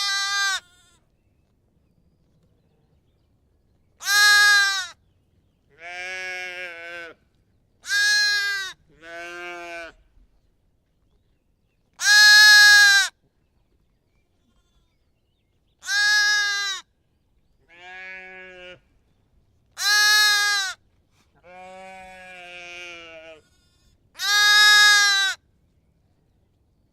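Lamb bleating about ten times at irregular intervals, each bleat about a second long and high-pitched, some loud and some fainter, with silence between them.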